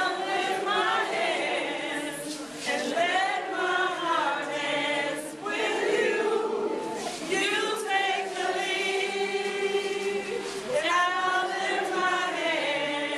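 A group of women singing a praise song together in chorus, voices rising and falling together.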